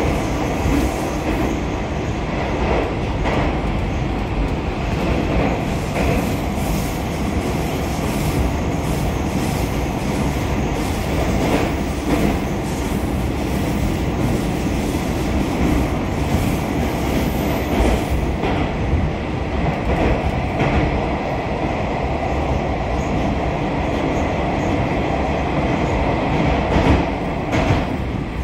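Metro train of the 81-725.1 "Baltiets" type running at speed through a tunnel, heard inside the car: a steady, loud running noise from the wheels and running gear, with scattered clacks from rail joints.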